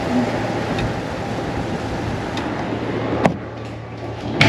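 Wind and outside air noise rushing in through the open window of a Ferris wheel gondola. About three seconds in a sharp click sounds and the noise drops, as from the sliding window being shut. Another click comes near the end.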